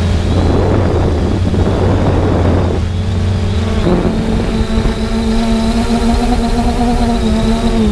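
3DR Solo quadcopter's motors and propellers humming steadily as several held tones that shift a little in pitch, heard from its onboard camera. A rush of wind noise sweeps over it in the first three seconds, with another short gust about four seconds in.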